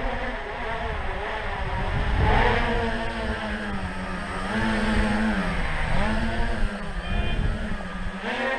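Tricopter's three motors and propellers buzzing in flight, the pitch dipping and rising again and again as the throttle is worked.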